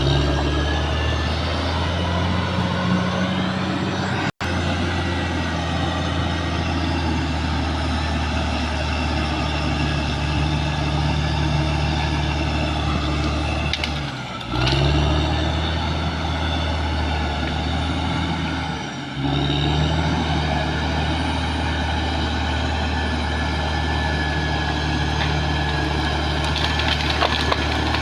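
Caterpillar D6R XL bulldozer's diesel engine running steadily under load, its note sagging briefly twice, about 14 and 19 seconds in. The sound cuts out for an instant about four seconds in.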